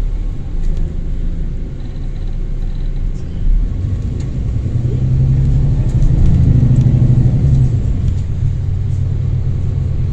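Diesel engine of a London bus (Stagecoach 11315) running and growing louder about halfway through as it pulls or passes, then easing off slightly. A faint turbocharger whine sits over the low rumble.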